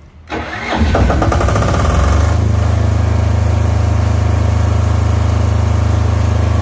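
Silent-canopy 15 kVA generator set being started: the starter cranks briefly, the engine catches within about a second, revs up, and from about two seconds in settles into a steady run.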